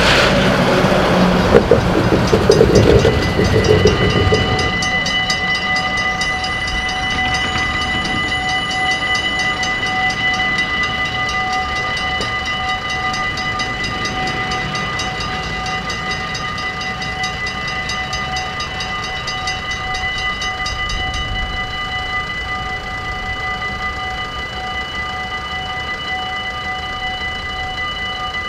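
Dutch level-crossing warning bell ringing rapidly and without a break, signalling an approaching train while the barriers come down. A truck passes loudly in the first four seconds or so.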